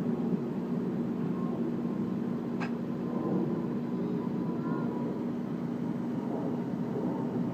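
Backhoe loader's diesel engine running steadily, a low even drone with a constant hum. A single short click about two and a half seconds in.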